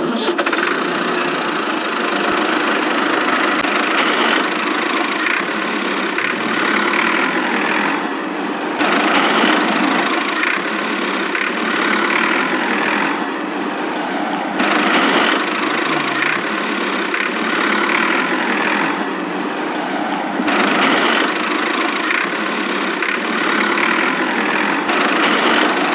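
A motor vehicle's engine running steadily, its sound thinning briefly three times.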